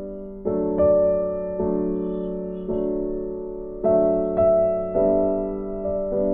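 Background piano music: a slow line of struck notes and chords, each ringing on and fading away before the next.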